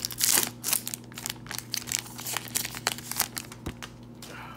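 Trading card pack wrapper crinkling and tearing as it is opened by hand, loudest at the start and stopping about four seconds in.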